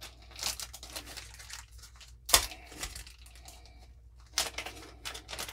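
Paper and plastic packaging of a replacement revolver mainspring rustling and crinkling as the packet is handled and opened, with a single sharp click about two seconds in.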